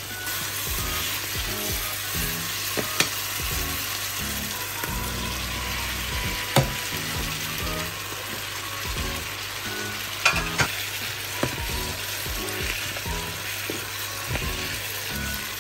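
Food frying and sizzling in a pan, with a few sharp knocks scattered through.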